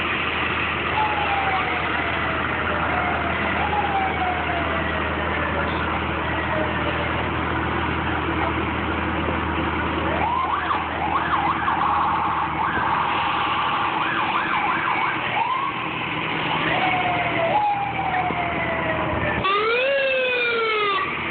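Sirens of fire trucks and rescue vehicles passing slowly in a line: long wails gliding down in pitch, then from about halfway a quicker yelping, with a fast up-and-down sweep near the end. Truck engines run underneath.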